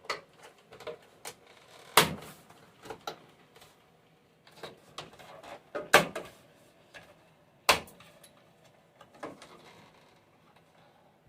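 Plastic cover trim of a Samsung microwave door being pried off: a run of sharp clicks and snaps, the three loudest about two, six and nearly eight seconds in, with smaller ticks and rattles between.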